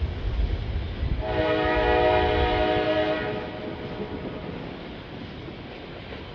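CSX locomotive air horn sounding one blast of about two seconds, a chord of several steady tones, starting about a second in. A low rumble fades out under it.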